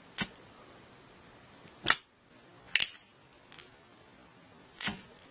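Zippo lighter's hinged lid being flipped open and snapped shut during a spinning trick: four sharp clicks at uneven spacing, with a fainter one between the last two.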